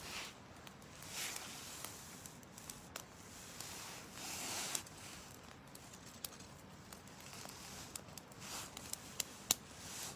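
Wood fire crackling: scattered sharp pops and snaps over a soft hiss that swells three times.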